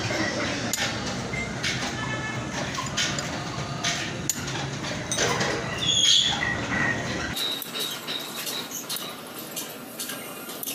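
Steel rollers clicking and clinking as they are pressed one by one into the cage of a large cylindrical roller bearing during reassembly, over a low background rumble that cuts off about seven seconds in.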